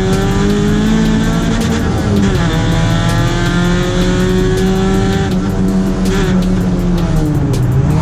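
Race car engine running at high revs under hard acceleration, its pitch dipping and climbing again at gear changes about two seconds in and near the end.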